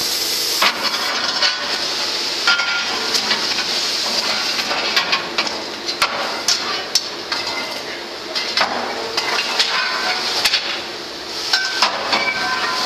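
Irregular metallic clanks and taps as a long steel rod is worked in a ladle of molten aluminium and strikes its rim, over a steady hiss.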